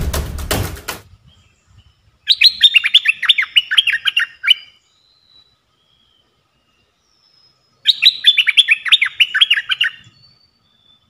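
Caged decoy bulbul singing its lure call: two bursts of rapid short falling notes, each about two seconds long and about five seconds apart, with a few faint single notes between them.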